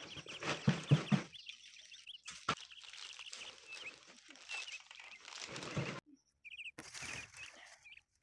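A woven plastic sack rustling and knocking as bananas and leaves are packed into it, with a few heavier knocks in the first second or so. Small birds chirp in the background.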